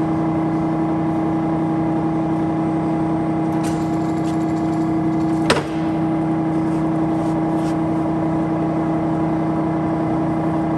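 Monarch 16" x 30" geared-head engine lathe running, a steady hum of several fixed tones from its motor and headstock gearing. About halfway through, a single sharp clunk as a headstock speed lever is moved.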